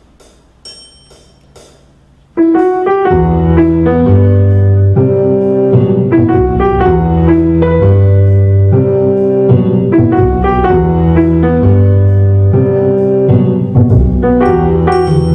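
A few faint ticks, then about two and a half seconds in a loud piano piece begins: a right-hand piano melody over a computer-played left hand and backing from piano-learning software.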